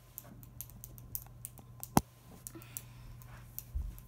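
Scattered light clicks and taps, with one sharp click about two seconds in, then low thuds near the end as someone walks up.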